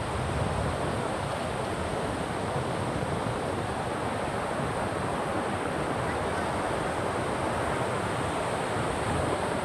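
Steady rushing of water, even and unbroken throughout.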